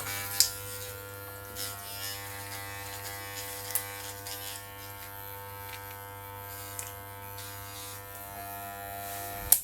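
Electric trimmer buzzing steadily with a hum, switched off with a sharp click just before the end.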